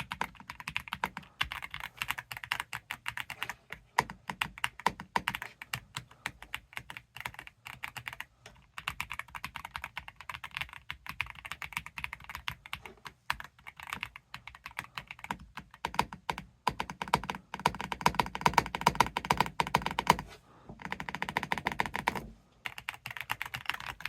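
Typing on a Redragon K686 PRO SE gasket-mounted mechanical keyboard with linear switches: a fast, continuous patter of key presses, with a couple of short pauses near the end.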